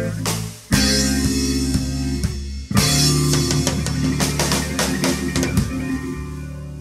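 Small rock band of two electric guitars, bass and drum kit playing the closing hits of a song. Two loud full-band chords land about two seconds apart, each held and ringing with drums playing under it, then slowly dying away near the end.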